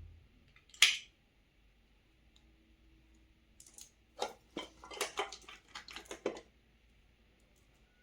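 Toy packaging being handled. There is one sharp snap about a second in, then a quick run of clicks and rustles in the second half.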